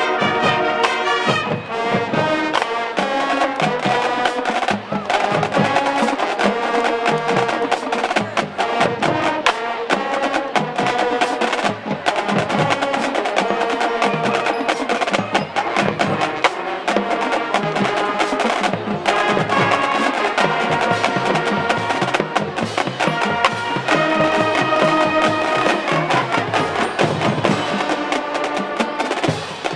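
High school marching band playing at full strength: brass and sousaphones holding chords over marching snare, tenor and bass drums, with many quick, sharp percussion strikes.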